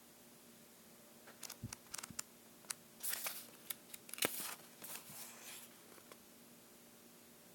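Faint handling noises: a string of light clicks and two short rustles in the middle, over a low steady hum.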